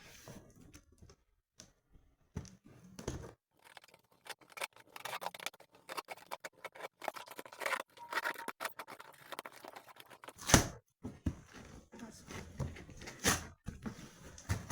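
Cardboard box and packaging being handled and opened: scattered rustling, scraping and clicks, with one sharp knock about ten and a half seconds in.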